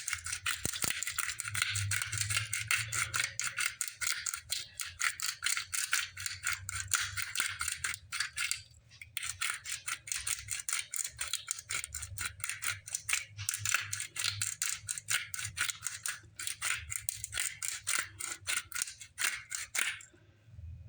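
Black pepper being shaken out of a spice container, a fast dry rattle of grains in bouts with a few short pauses.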